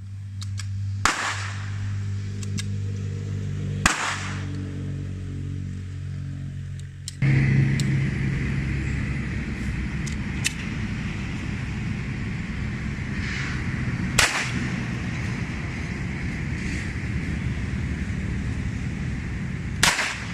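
Single pistol shots fired a few seconds apart, about five in all with four sharp loud cracks, over a steady low background hum.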